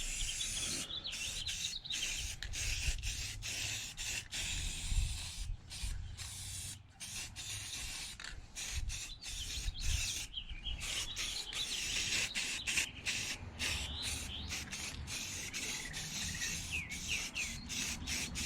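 Spray paint hissing in many short bursts with brief gaps between them, as the final coat of gray goes on a metal frame. Birds chirp in the background.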